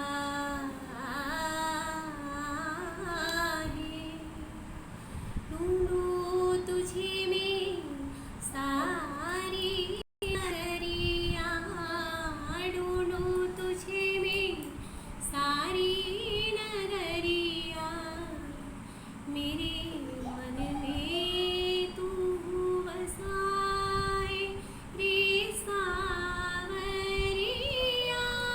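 A female voice singing a slow melody with long held notes and ornamental glides between them. The sound drops out for a moment about ten seconds in.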